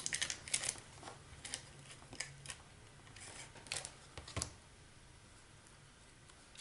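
Cardstock being handled and pressed into place on a paper stocking: a string of light paper rustles and small taps, stopping about four and a half seconds in.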